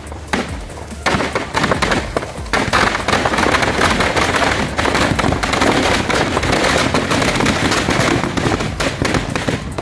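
Firecrackers packed inside a burning Dussehra effigy going off in a rapid, continuous crackle of pops. It starts about a second in and grows much denser a couple of seconds later as the effigy goes up in flames.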